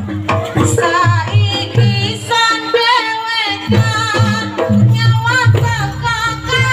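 Live jaranan accompaniment music: hand drums beating a steady rhythm under a wavering, ornamented melody line.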